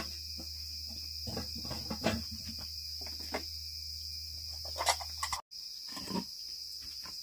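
Steady high-pitched insect chirring, like a cricket chorus, with a low hum underneath and a few short knocks scattered through. The sound cuts out for a split second about five and a half seconds in, after which the hum is gone.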